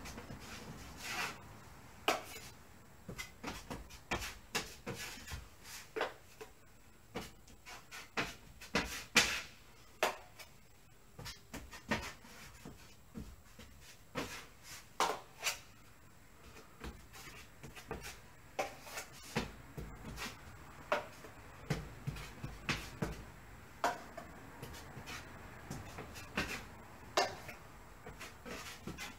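Wide steel drywall knife slapping and scraping joint compound (sheetrock mud) onto a drywall wall to build a heavy texture: irregular short slaps and scrapes, roughly one or two a second.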